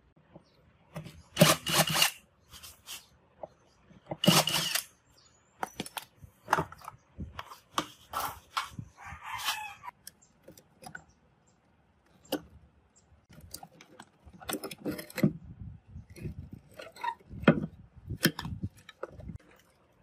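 Two loud scrapes as a hard plastic refrigerator freezer liner is handled and pulled free, then scattered sharp clicks and snips from pliers working on the refrigerator's wiring beside the compressor.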